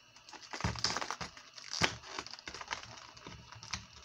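Clear plastic lure packaging crinkling and crackling as it is handled, with a few sharper cracks, the loudest just under two seconds in.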